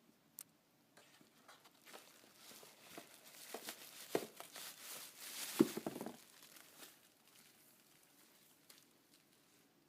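Packaging crinkling and rustling as it is handled and opened, a run of small crackles that thickens midway, with two soft knocks, then fades out.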